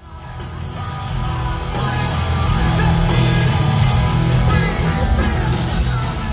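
Live heavy rock band playing loud, bass-heavy music, heard from within the audience. It fades in from silence at the start.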